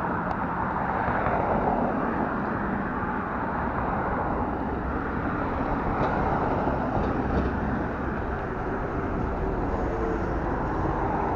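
Steady street traffic noise: vehicles running and passing on a city road.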